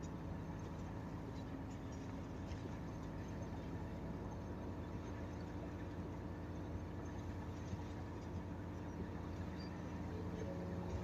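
Inside the cabin of a Nissan Diesel city bus with a Fuji Heavy Industries 7E body: the diesel engine runs at a steady speed with a constant low hum.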